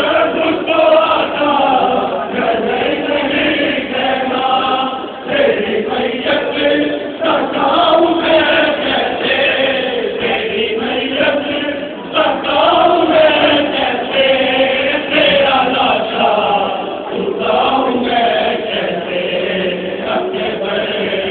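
A crowd of men chanting together in a Shia Muharram mourning chant, many overlapping voices rising and falling in pitch.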